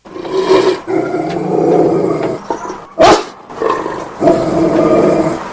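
Dobermann growling in two long stretches, with a single short bark about three seconds in that is the loudest moment.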